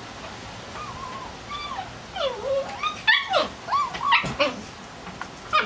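Siberian huskies whining and yipping: a run of short high calls gliding up and down in pitch, starting about a second in and loudest around three to four seconds. A short sharp sound comes near the end.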